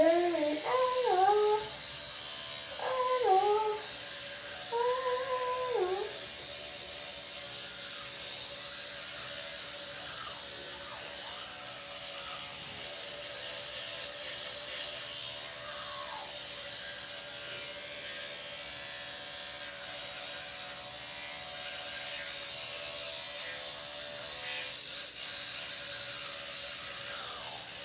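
Electric toothbrush running with a steady hum while teeth are being brushed.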